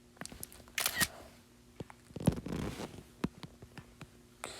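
Faint scattered clicks and taps from handling and tapping a device, with two short rustles about a second and two seconds in, over a faint steady hum.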